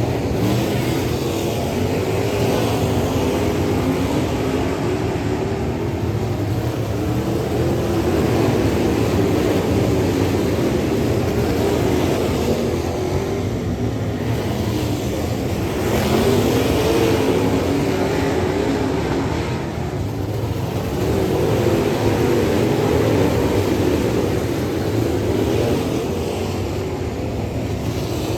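Dirt late model race car's V8 engine racing flat out on a dirt oval. The note falls away and climbs again every six seconds or so as the throttle is lifted and reopened.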